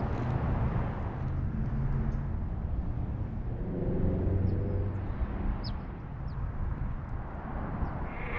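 Outdoor ambience: a steady low rumble of distant freeway traffic, with an engine hum swelling and fading near the middle, and a few short, high bird chirps.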